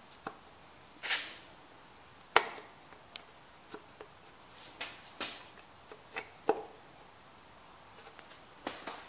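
Scattered light clicks and knocks of metal engine parts as a connecting rod, its bolts fitted with thread protectors, is worked by hand onto the crankshaft journal of a Vortec 4.3 V6 during piston installation. There is a short scrape just after a second in and the sharpest knock about two and a half seconds in.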